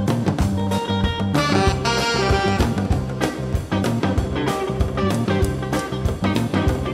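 Instrumental background music with a steady drum beat and a repeating bass line.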